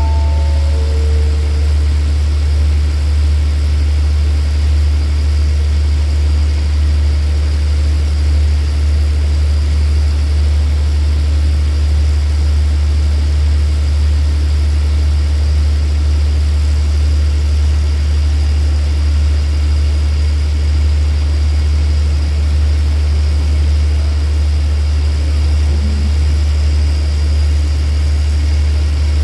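Steady low drone of a standing diesel passenger train idling, unchanging in level throughout. A short descending run of four chime-like notes sounds right at the start.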